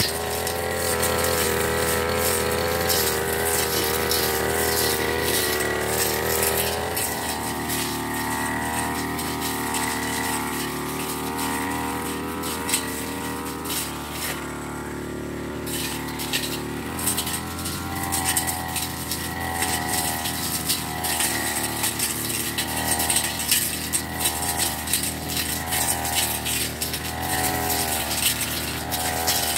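Backpack brush cutter's small engine running while cutting grass and weeds. It is revved up and down over and over, and in the second half the rises come in an even rhythm, about one every second and a half.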